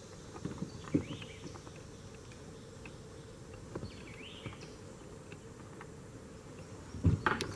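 Creekside insects buzzing faintly, with a few light knocks, then a louder cluster of thumps near the end as something is handled in the plastic kayak.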